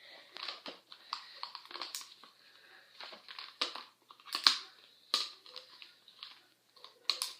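Irregular rustling, scraping and clicks from headphones being handled and adjusted close to the microphone, the loudest knock about halfway through.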